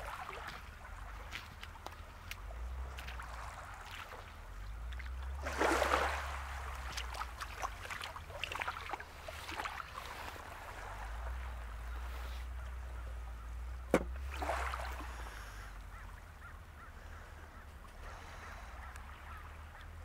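Distant seabirds calling over a low rumble of wind on the microphone. The loudest calls come about six seconds in and again around fourteen seconds, where there is also a single sharp click.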